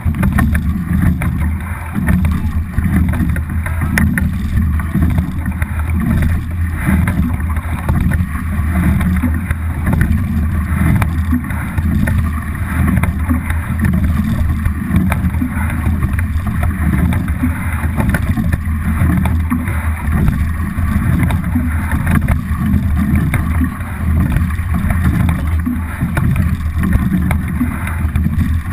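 Wind buffeting the microphone of a camera mounted on a racing double scull, over water rushing past the hull as the boat is rowed. The noise is loud and unbroken, with a heavy low rumble.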